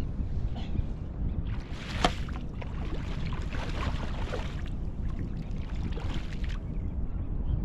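Steady wind rumble on the microphone over surf, with a sharp click about two seconds in and a few short wet splashing noises over the next couple of seconds.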